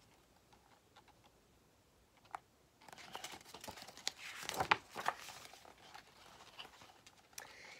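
Page of a large picture book being turned: a quiet papery rustle starting about three seconds in, after a single faint click.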